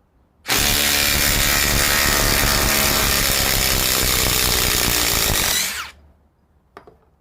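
Ryobi PBLID02 brushless impact driver hammering steadily for about five seconds as it backs a five-inch 3/8-inch lag screw out of wood. Near the end it stops and the motor winds down with a short falling whine.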